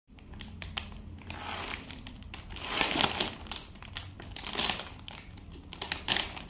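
Foil-lined plastic cracker bag crinkling and rustling as small hands grip it and pull it open, in irregular bursts that are loudest about three and four and a half seconds in.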